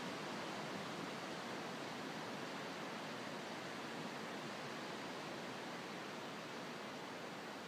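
Steady, even wash of small ocean waves breaking on a sandy beach, heard from a distance, with no single crash standing out.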